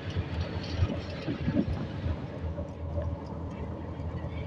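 Engine and road noise of a moving motor rickshaw, heard from on board: a steady low drone under an even rushing noise.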